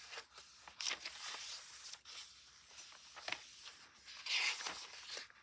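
Paper pages of a handmade junk journal being turned and handled: soft rustling with a few short light ticks, a little busier about four seconds in.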